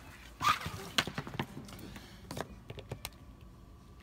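Handling noises from a power cord and its plug being fitted to a wall outlet: a brief brush of movement, then a scatter of light clicks and knocks.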